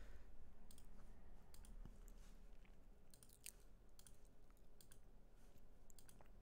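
Faint, scattered clicks of a computer mouse and keyboard, a dozen or so irregular taps, over a low room hum.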